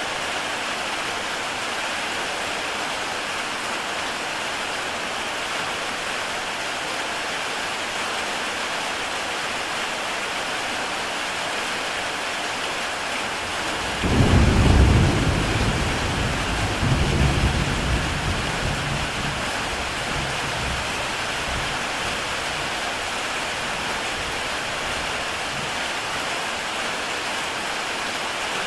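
Heavy rain pouring steadily on a tile roof. About halfway through, a clap of thunder breaks in as a sudden deep rumble, swells a second time and rolls away over several seconds.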